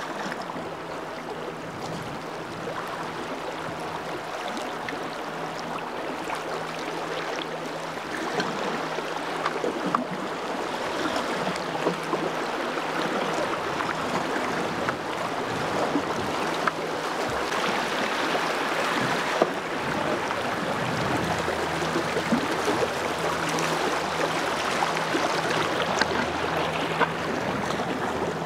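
Fast river water rushing past a canoe running shallow rocky swifts, a steady noise that grows louder from about eight seconds in. A few sharp knocks stand out above it.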